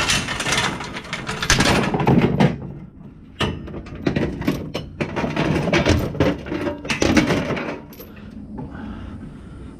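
Rusty scrap metal and tools clanking and clattering as they are tossed onto a pile of scrap, in several irregular bursts that die down near the end.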